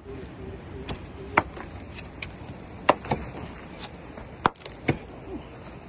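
Hand hammer striking bare rock: about six sharp, separate blows at uneven intervals, two of them in quick pairs.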